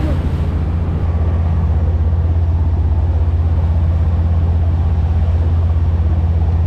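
Boat engine running steadily: a loud, deep, even drone with a fine regular pulse.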